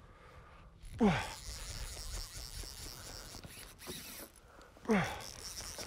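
Fly reel's click drag ratcheting as a hooked northern pike pulls line off it, with two short falling exclamations from the angler, about a second in and near the end.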